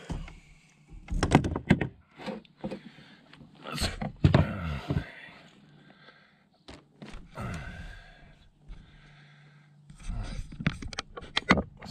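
Several knocks and thumps in three clusters, about a second in, around four seconds and near the end, from handling a caught bass and gear aboard a kayak, with some brief low vocal sounds.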